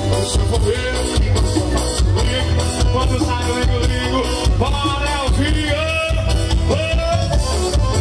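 Live forró pé de serra dance music: an accordion-led band with a strong bass and steady beat. A voice sings over it from about two seconds in.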